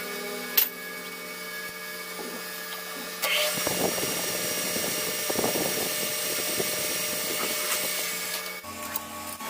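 Metal lathe running with a steady motor hum. A little over three seconds in, a louder, noisier cutting sound with thin high tones joins it and lasts about five seconds, then changes suddenly near the end.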